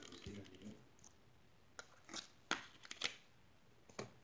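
Glitter slime being pressed and poked by hand in a plastic tub: about five faint, short clicks and pops, spaced unevenly.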